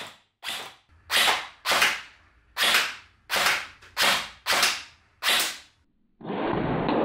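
FB M110 SASS electric gel blaster firing single shots, about eight sharp cracks roughly two-thirds of a second apart. About six seconds in, it switches to a continuous full-auto burst.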